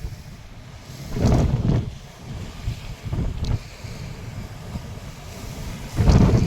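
Strong wind buffeting the microphone in gusts, a loud rumbling swell about a second in and another near the end, over steady wind noise.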